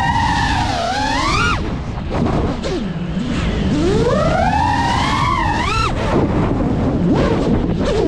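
FPV quadcopter's brushless motors whining, their pitch rising and falling with the throttle, over a rough rush of prop wash and wind. The whine climbs to a peak about a second and a half in, falls low, climbs again to a peak around five and a half seconds and then drops away.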